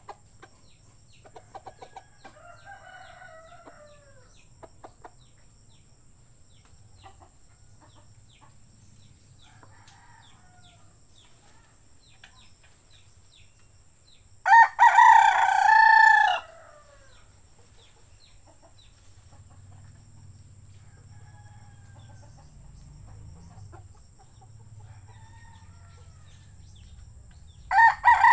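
A rooster crows loudly once, about halfway through, for about two seconds. Another crow starts right at the end. In between come fainter, scattered calls and clicks.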